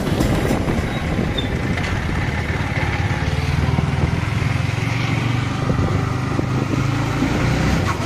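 Yamaha R15 motorcycle's single-cylinder engine running steadily as the bike rides along at low speed, heard from the rider's seat. The low engine hum grows stronger about three seconds in.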